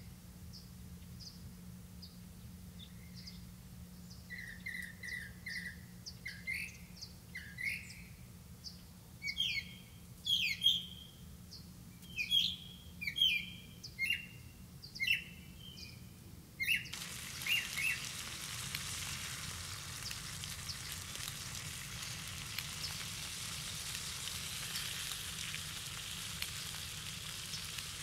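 Small birds chirping in short repeated calls for the first half. Then, after an abrupt change, a steady sizzle of food cooking in banana leaves in a covered pan.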